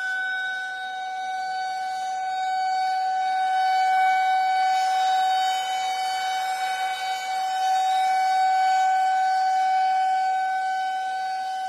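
Air raid (civil defence) siren sounding a steady, held tone. Its loudness swells and eases slightly.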